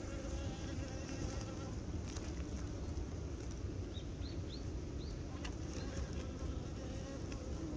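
Honeybees buzzing: a steady low hum of wings from a crowd of bees feeding at a feeder.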